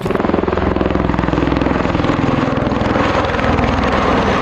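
V-22 Osprey tiltrotor in flight, its proprotors making a steady, rapid beating chop.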